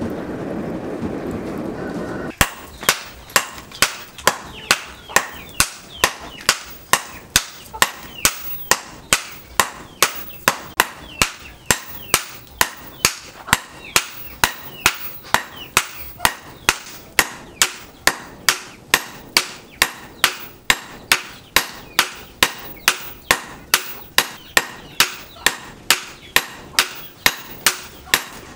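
For about two seconds a forge fire burns with a steady rush. Then hammers strike red-hot leaf-spring steel on an anvil in an even run of ringing blows, about two a second, as the steel is forged into an axe head.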